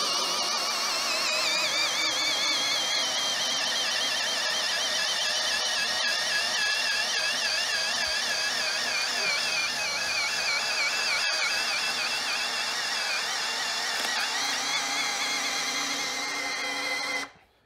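AEG BSB18BL brushless cordless drill on first speed, under heavy load as it drives a 40 mm self-feed auger bit through a thick wooden beam. The motor whine wavers in pitch as the bit bites and stops suddenly near the end.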